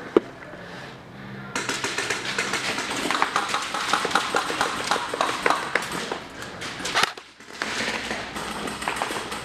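Clatter of an airsoft skirmish: one sharp click, then, from about a second and a half in, a dense stream of rapid, irregular clicks and rattles over a hiss. It breaks off briefly near the seven-second mark and starts again.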